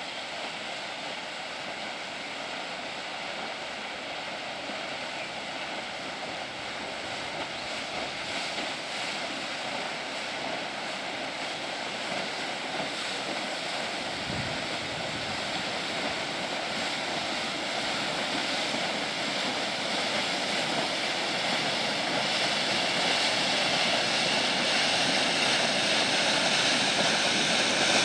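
Inland motor cargo ship pushing a lighter along a canal: a steady rushing noise of the convoy and the water it pushes along the hull, growing louder throughout as the lighter's bow comes alongside.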